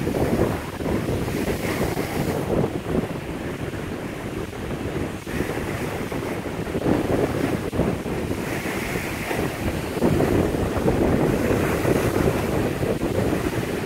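Wind-driven lake waves crashing and splashing over a low wall of blocks, with strong wind buffeting the microphone. It grows louder in the last few seconds.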